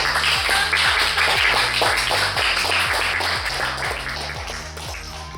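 Background music with a steady drum beat, gradually fading near the end.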